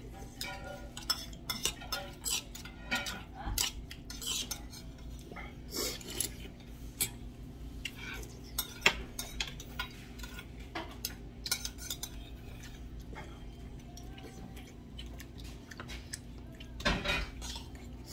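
A metal spoon clinking and scraping against small stainless steel bowls during a meal. The clinks come irregularly throughout, busiest in the first half, with a louder cluster near the end.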